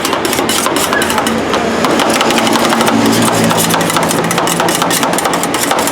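Metal spatulas rapidly chopping and tapping on a rolled-ice-cream cold plate, crushing fruit into the cream, several strikes a second. A steady low machine hum joins about two seconds in and fades near the end.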